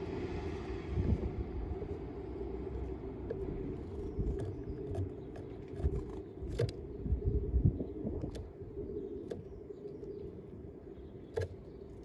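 A steady low engine drone, as of distant traffic, with a hiss that fades away in the first second or so. Scattered sharp taps and a few low knocks sound over it.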